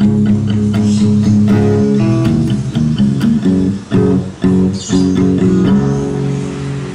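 Background music played on plucked guitar, a run of notes changing every fraction of a second.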